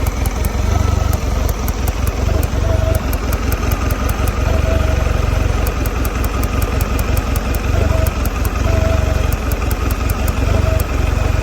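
2022 Mercury 150 outboard motor idling roughly, its running uneven and wavering in strength, with a light, rapid ticking over it.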